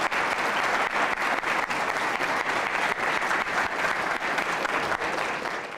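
Audience applauding steadily, the dense clapping cutting off suddenly right at the end.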